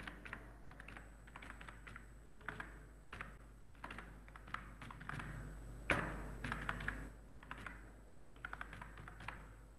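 Typing on a computer keyboard: irregular runs of quick keystrokes, with one sharper key click about six seconds in.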